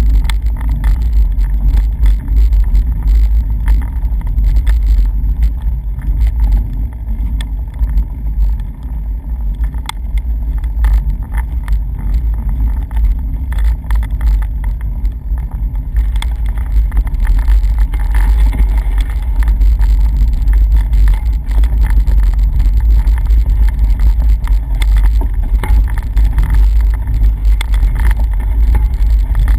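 Wind buffeting the microphone of a bicycle rider's camera: a loud, steady low rumble with constant fluttering, turning a little hissier past the halfway point.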